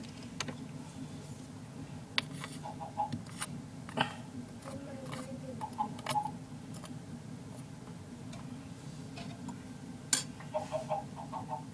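Scattered light clicks and taps over a steady low hum, with a few short clusters of chirp-like sounds about three, six and eleven seconds in.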